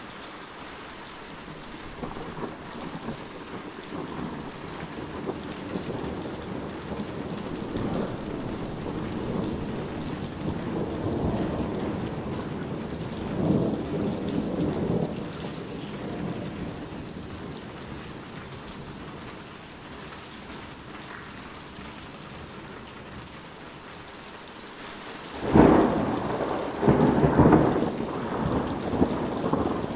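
Heavy rain falling steadily, with thunder. A long rolling rumble builds and fades over the first half, and a loud, sudden thunderclap about 25 seconds in is followed by more rumbling.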